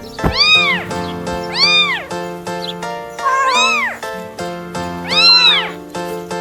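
Background music with an animal cry that rises and falls in pitch like a meow, heard four times at roughly even spacing.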